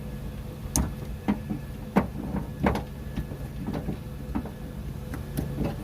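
Irregular sharp plastic clicks and knocks, about eight, from hands working the wiring connectors and trim inside a car door, over a steady low hum.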